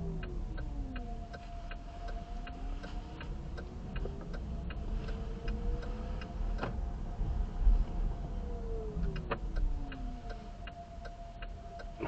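Whine from the 2023 Chevy Bolt EV's electric drive motor, gliding down in pitch, then up, then down again as the car slows, speeds up and slows in stop-and-go traffic. Under it are a low road rumble, a faint steady tone and a steady ticking about two to three times a second.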